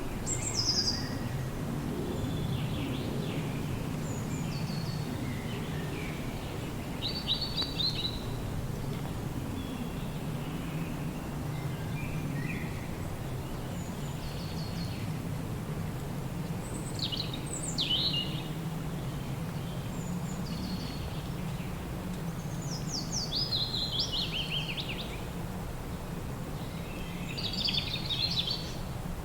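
Wind humming steadily through a forest, with songbirds chirping and calling on and off above it; quick rising and falling chirp phrases come in clusters near the start, several times in the middle and near the end.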